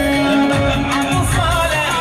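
Arabic wedding music: a steady drum beat about twice a second under held melody notes, with a voice singing a wavering, ornamented line in the second half.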